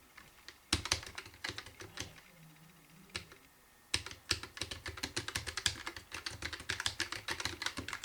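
Typing on a Keychron K1 low-profile mechanical keyboard with Keychron red switches: a few scattered keystrokes, a short pause, then fast continuous typing from about four seconds in.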